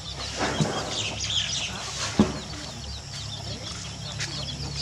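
Birds chirping and calling over a steady low hum, with a single sharp knock about two seconds in.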